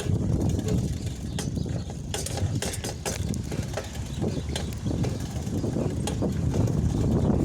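Bicycle being ridden, with a steady low rumble of wind and tyres and irregular clicking and knocking rattles from the bike throughout.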